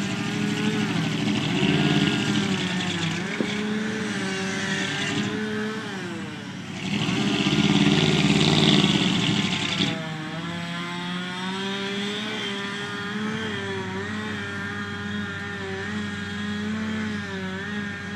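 Truck engine revving hard under load, its pitch rising and falling, as it fights to pull out of mud with wheels spinning. The hardest, loudest push comes about halfway through and lasts a few seconds, then the engine settles into a steadier, wavering run.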